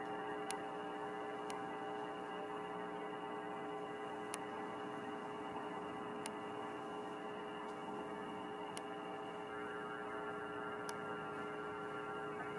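A steady electrical hum made of several held pitches, with a few faint ticks scattered through it.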